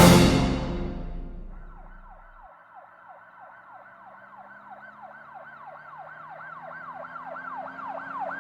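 Music fading out in the first second or so, then an emergency-vehicle siren effect: a fast repeating up-and-down yelp, about three sweeps a second, growing steadily louder.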